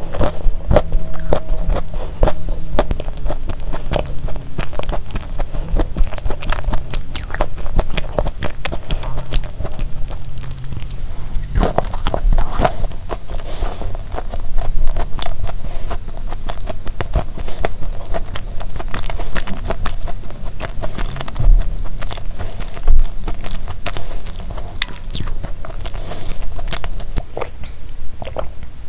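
Close-miked chewing of a soft sandwich cookie, with many small wet clicks and crackles from the mouth.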